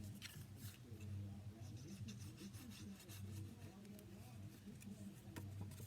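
Faint rustling and rubbing of paper being slid into place and pressed down by hand, over a low steady hum.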